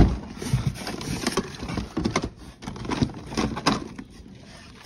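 Carded die-cast toy cars in plastic blister packs clacking and rustling as a hand rummages through a cardboard box, with a sharp knock right at the start and irregular small clicks after it that die away near the end.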